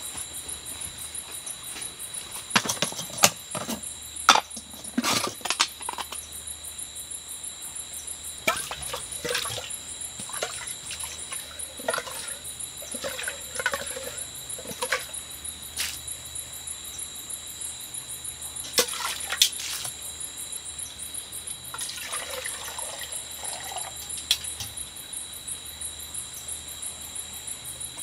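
Metal camp cookware clinking and knocking as it is handled, loudest a few seconds in, with water poured into a cup now and then. A steady high-pitched trilling of night insects runs underneath.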